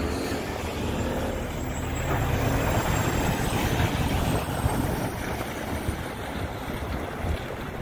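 A Peterbilt 389 semi tractor's diesel engine running steadily as the truck drives past and turns, growing a little quieter in the last couple of seconds.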